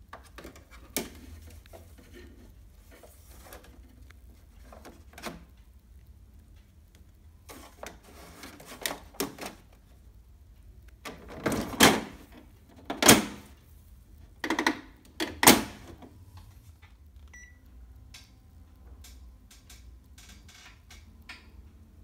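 Plastic filters of a Panasonic wall-mounted split air conditioner being fitted back in with light clicks and rattles, then its hinged plastic front panel pressed shut with four loud knocks about a second apart. A short beep follows.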